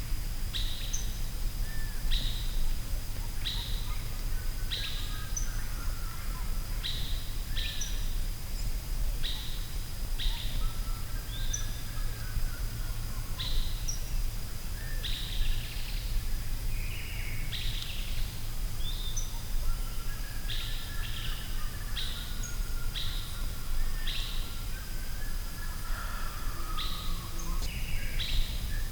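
Forest ambience: birds chirping, with short, sharp descending notes repeated every second or two and softer warbling phrases between them, over a steady low rumble and a thin, steady high whine.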